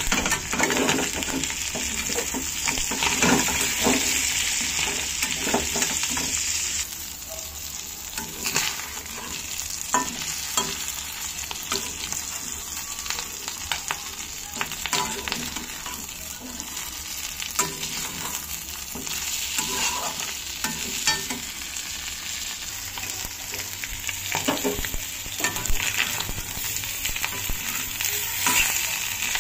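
Fish intestines and fat sizzling in hot oil in a kadhai, with a steel spatula scraping and clinking against the pan as the pieces are stirred and turned. The sizzle is loudest for the first several seconds, eases, then swells again about two-thirds of the way through.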